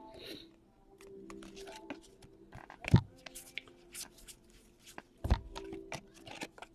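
Trading cards being handled and flipped through: quick clicks and slides of card stock, with two louder knocks about three and five seconds in.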